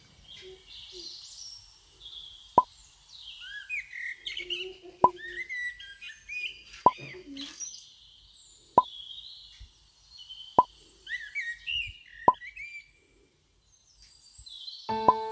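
Birdsong, many short chirps and trills, with a short sharp pop about every two seconds, seven pops in all, louder than the birds.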